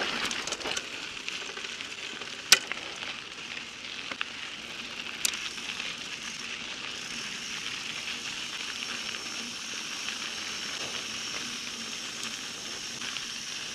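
Mountain bike tyres rolling slowly over a dirt and gravel trail, a steady crackling hiss. There is a sharp knock about two and a half seconds in and another about five seconds in.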